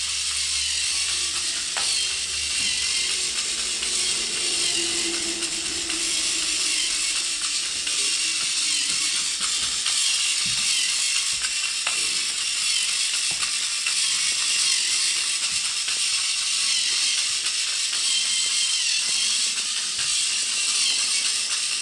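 Small K'NEX battery motor whirring through plastic gears with a steady rattle as it drives a toy car with big spoked wheels.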